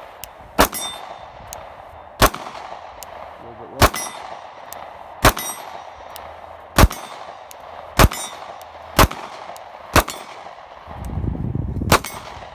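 Nine shots from a Sig P365 9mm pistol, spaced about one to two seconds apart, with the steel gong target ringing as it is hit.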